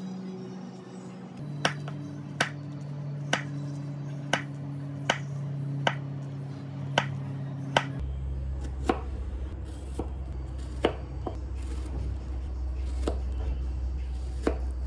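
Kitchen knife slicing through banana and strawberries onto a wooden chopping board: about a dozen sharp knocks, roughly one a second, each as the blade meets the board. Background music with low held notes plays underneath.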